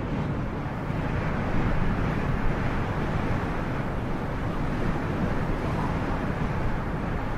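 Snowstorm wind blowing across the microphone: a steady rushing noise with a heavy, fluttering rumble underneath.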